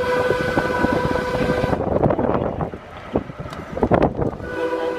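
Vintage electric trolley running on rail, with its horn sounding a steady tone for about the first two seconds and a tone again near the end. Wind buffets the open window, and there are scattered clicks from the wheels on the track.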